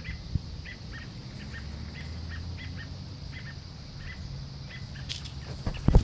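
Parent songbirds giving short, sharp alarm chirps over and over, a few a second, agitated over their fledglings on the ground. Near the end, a few loud knocks as the phone is handled.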